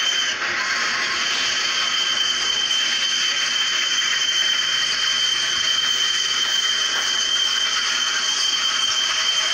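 Steam locomotive hauling a train of tank wagons past at close range: a steady loud rushing noise, with one high steady tone held throughout that drops in pitch as it cuts off at the end.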